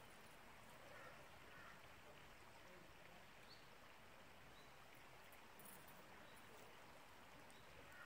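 Near silence: the faint, steady rush of a distant stream, with a few faint short high chirps.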